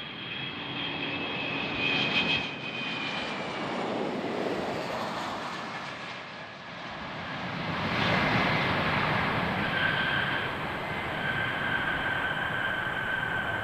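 KC-135 Stratotanker's four turbofan engines running as the tanker comes in to land: a steady jet roar with high whining tones, swelling about eight seconds in.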